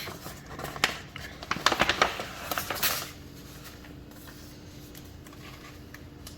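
Quick crackling, rustling and scraping for about three seconds: a peel-and-stick decal being handled and pressed onto the wall with a flimsy plastic spatula to push out the air bubbles. After that only a faint steady hum.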